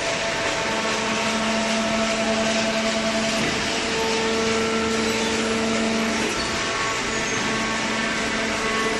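Hydraulic baler's motor and pump running steadily with a whine. A stronger hum and a higher tone come in about half a second in and drop away about six seconds in.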